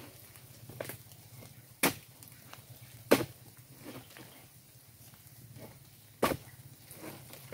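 Oil palm harvesting chisel (dodos) chopping at an oil palm: three loud sharp strikes, unevenly spaced, with a few lighter knocks between them.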